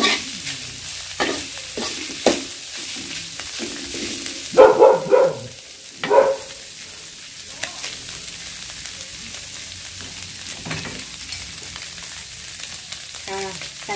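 Mackerel tuna and chillies sizzling in hot oil in an aluminium wok, stirred with a metal spatula, with sharp clacks of the spatula against the wok in the first couple of seconds. A dog barks twice, about five and six seconds in; these are the loudest sounds.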